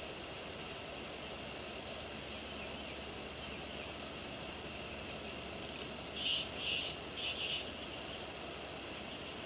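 Steady outdoor ambience with a constant high insect drone. About six seconds in comes a quick run of four short, high, raspy bird calls.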